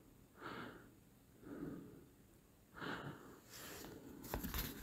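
Faint human breathing: several short, soft breaths, with a couple of faint clicks near the end.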